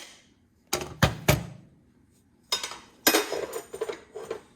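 Metal hand tools clanking and clinking against each other as they are put down and handled: three sharp clanks about a second in, then a longer rattling clatter.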